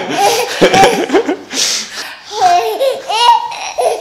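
A baby and an adult laughing together in several short bursts, the baby's laughs high-pitched.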